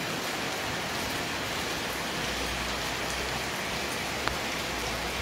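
Steady rain falling on a stone-paved street and the surrounding buildings. A low rumble sits underneath from about two seconds in, and a single sharp tap comes near the end.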